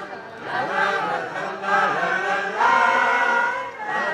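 Live singing voices holding long notes, growing louder about two and a half seconds in.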